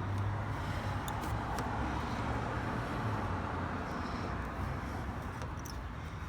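Heat gun running, a steady blowing whoosh over a low motor hum, used to soften emblem adhesive, with a few faint clicks.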